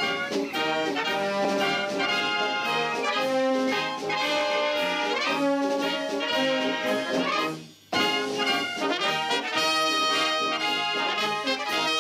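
Naval brass band playing, with tubas, trombones and trumpets. The music breaks off briefly about eight seconds in and then starts again.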